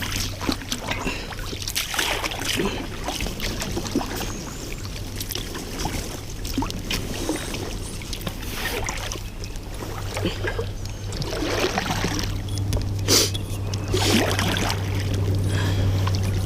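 Kayak paddling: the paddle dipping and splashing in the water in irregular strokes, over a steady low hum.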